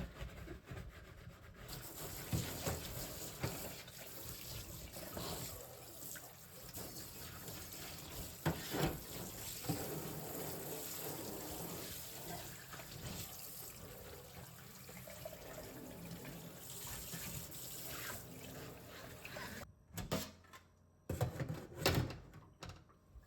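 Kitchen tap running into the sink, with occasional knocks and clatter. The water starts about two seconds in and shuts off near the end, followed by a few louder knocks.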